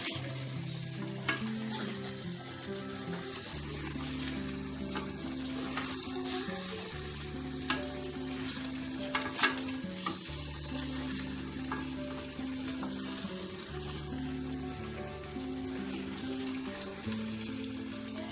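Prawns and sauce sizzling in a hot iron kadhai while a wooden spatula stirs them, with a few brief scrapes and knocks of the spatula against the pan.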